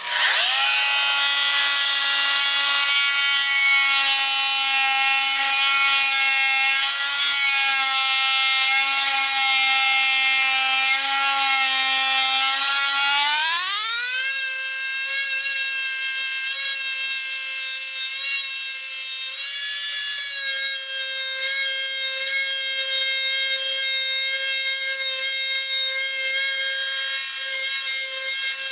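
Small handheld electric power tool running and cutting into a turned wooden bowl: a steady motor whine with a cutting hiss. About halfway through, the pitch rises quickly and holds higher as the tool speeds up.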